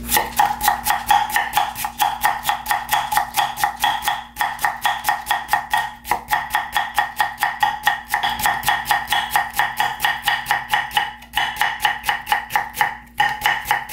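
Kitchen knife rapidly julienning sliced Korean radish on a thick round wooden chopping block: quick, even knocks about five a second, with a few brief breaks.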